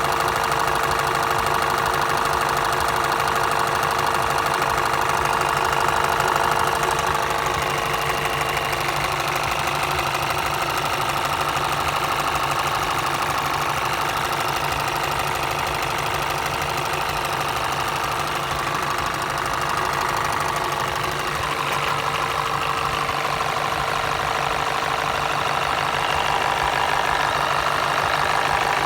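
Car engine idling steadily, with an extraneous fast rhythmic knocking noise that the owner places around the turbocharger and vacuum pump. A steady whine runs under it and fades about eight seconds in.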